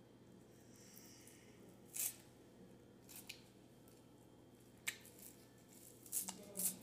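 Kitchen shears snipping through fresh chives, about five crisp snips at uneven intervals, the two loudest close together near the end.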